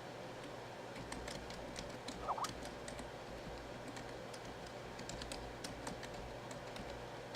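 Typing on a computer keyboard: irregular key clicks starting about a second in, over a faint steady hum.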